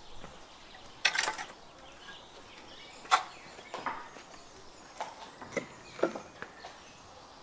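A run of short, sharp knocks and clatters at irregular moments, the sharpest about three seconds in, over a quiet outdoor background.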